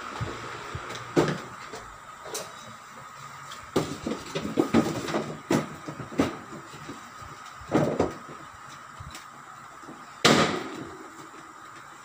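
Plastic and sheet-metal knocks and clatter from a Carrier window-type air conditioner's chassis and casing being handled and fitted together, with a loud bang about ten seconds in. A faint steady high hum runs underneath.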